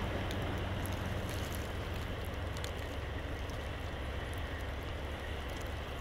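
Steady blizzard wind rushing over the microphone, mixed with the low, even rumble of a snow plow truck's engine idling.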